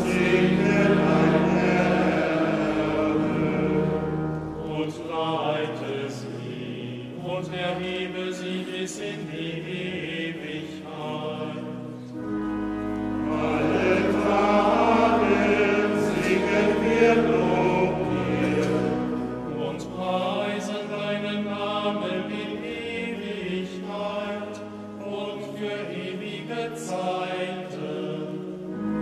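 A choir sings a sacred chant. The singing is louder near the start and again about halfway through, and softer in between.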